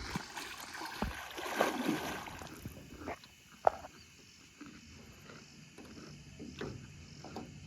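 Lake water splashing and lapping around a small boat as a swimmer dives under. Scattered small clicks and knocks run through it, with one sharp knock about halfway through.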